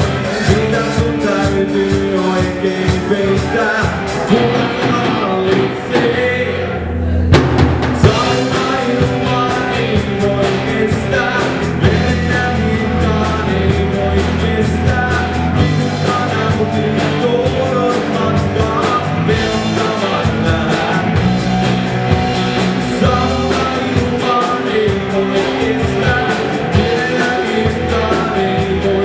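Rock band playing live: drum kit, electric guitars and bass, with singing. About four seconds in, the cymbals and drums drop out for a short break, and the full band crashes back in about seven seconds in.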